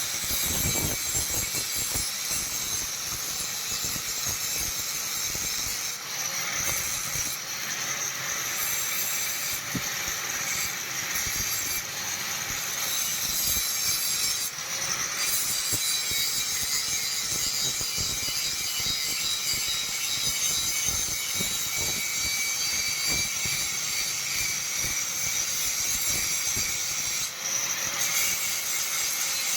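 Steel knife blank being worked with an abrasive tool: a continuous harsh, scraping metal-on-abrasive hiss with a few brief breaks.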